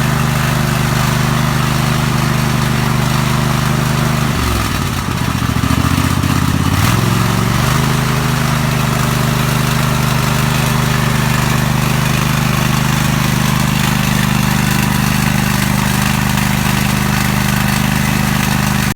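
Lawn mower engine running steadily after a blown head gasket was replaced. About four seconds in the engine speed drops sharply, then climbs back over a few seconds to the same steady speed.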